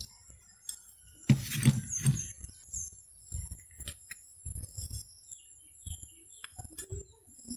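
Scattered light clicks and knocks from handling a scooter's centrifugal clutch plate and its small metal parts by hand, with a louder scuffing sound about a second and a half in. Small birds chirp faintly in the background.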